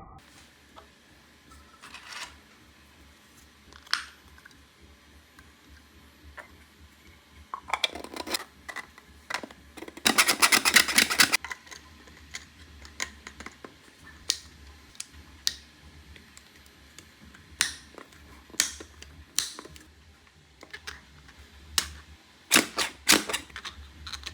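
Hard plastic clicks and clacks from a 3D-printed toy being worked by hand: scattered single taps, with a rapid rattling run of clicks about ten seconds in and a quick cluster of clacks near the end.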